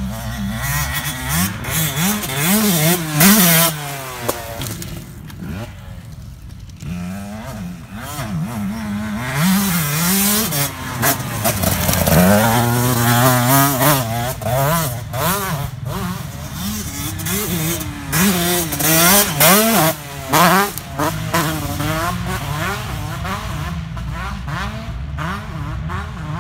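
Motocross dirt bike engine revving up and dropping back again and again as it is ridden hard.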